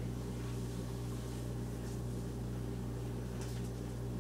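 Steady low electric hum of a running kitchen appliance.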